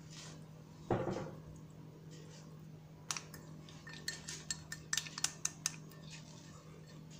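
A spoon clinking and scraping against a bowl of sauce as more is scooped out: one heavier knock about a second in, then a quick run of sharp clinks from about three seconds in. A low steady hum runs underneath.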